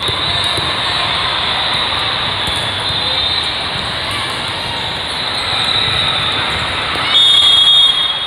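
Steady din of a crowded indoor volleyball hall during a rally. About seven seconds in it swells for a second with a shrill high whistle as the rally ends.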